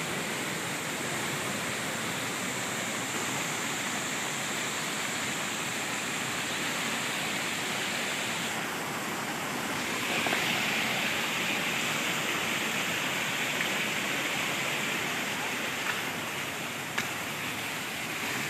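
Small rocky stream running and splashing down between boulders: a steady rushing of water, a little louder from about ten seconds in.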